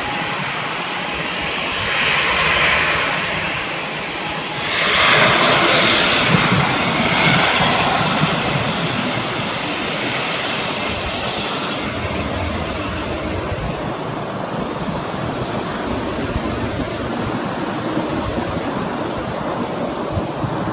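Twin-turboprop ATR 72 airliner's engines and propellers running on the runway. About four and a half seconds in the noise surges loudly with a high steady whine on top, then eases after about twelve seconds into a steady drone.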